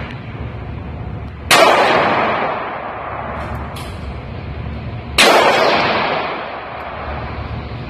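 Two gunshots about four seconds apart, each a sharp crack with a long echo ringing off an indoor shooting range, and a couple of faint clicks between them.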